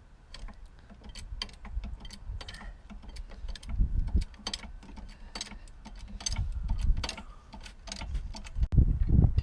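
Car jack being worked to lift the car: a run of irregular mechanical clicks, about two or three a second, with a few low thuds among them.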